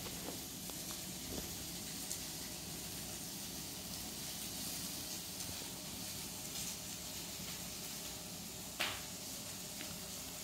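Food sizzling in a pan on the stove, a steady hiss, with a single short knock about nine seconds in.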